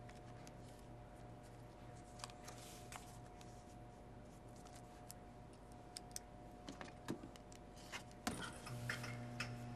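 Faint rustling and light taps of a paperback book and a paper slip being handled at a desk, over a steady low electrical hum. The handling noises grow busier toward the end, with a sharper click, and then a louder hum sets in.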